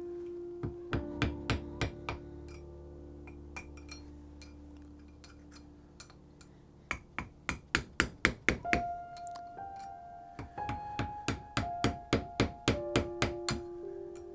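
Hammer striking a steel center punch to drive the old handle wood out of the eye of a double-bit axe head. Sharp metallic hits come in bursts, the fastest a run of about four a second near the middle, over background music of held notes.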